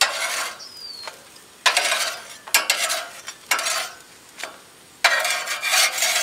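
Metal spatula scraping and clicking on a gas grill's grate as breaded eggplant slices are flipped, in about five short bursts, each with a rush of sizzling as a slice is turned.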